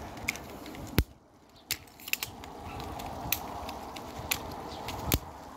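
Phone handling noise while the camera is carried about: scattered clicks and knocks over a steady hiss, with two sharp knocks, one about a second in and one near the end.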